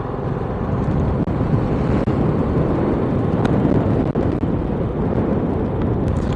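Motorcycle riding along at speed: a steady low rumble of wind and engine on the rider's microphone.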